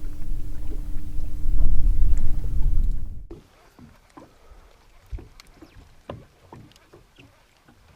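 Boat motor running with a heavy low rumble and a steady hum, cut off abruptly about three seconds in. Then it is quiet, with scattered small clicks and knocks.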